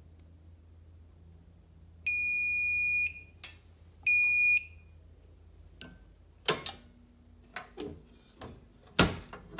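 Fire alarm control panel's built-in piezo sounder beeping twice: a steady high beep of about a second, then a shorter one. Clicks and knocks of handling at the panel follow.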